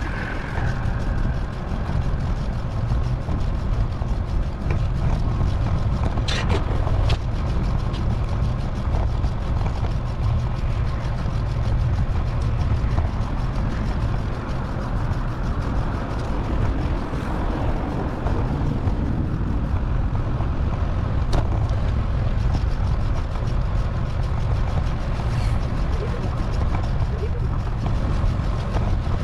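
Steady road and wind noise from a bicycle ride with passing traffic, played back at four times normal speed, with a few short clicks.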